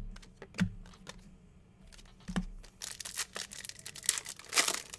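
A few soft knocks, then a dense stretch of crinkling and tearing from a plastic trading-card pack wrapper being opened, starting a little over halfway through.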